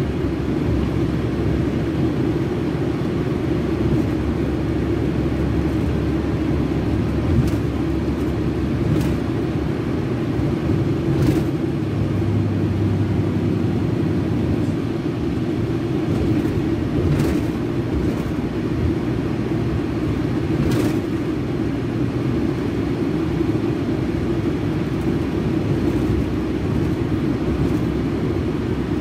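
Scania K380 bus's rear-mounted DC12 06 inline-six diesel engine running steadily, a low even drone with no change in revs, with a few faint clicks.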